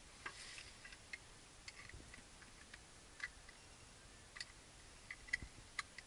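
Faint, irregular clicks and light knocks of loose stone shards shifting and clinking as someone crawls over them inside a small rock cave, about a dozen over the few seconds.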